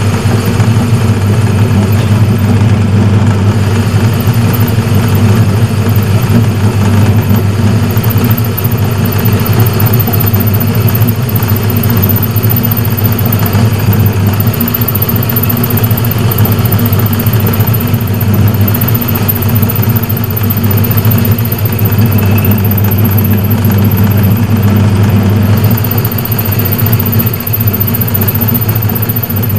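Metal lathe running steadily, its motor giving a deep, even hum.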